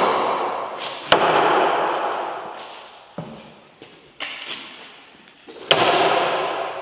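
Steel throwing needles hitting a wooden target board: a sharp strike about a second in and another near the end, each trailing off in a long echo, with a few faint clicks between.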